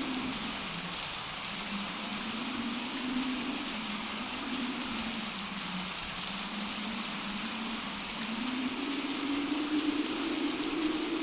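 Storm sound effect of steady heavy rain, with a low howling wind tone that slowly wavers in pitch and climbs a little near the end.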